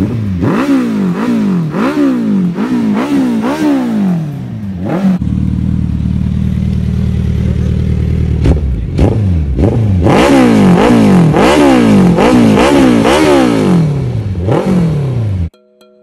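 Suzuki Hayabusa inline-four sportbike engine revved through an aftermarket exhaust in quick throttle blips, about one and a half a second, each climbing and falling back. A few seconds of steady idle sit between two runs of blips. It cuts off just before the end.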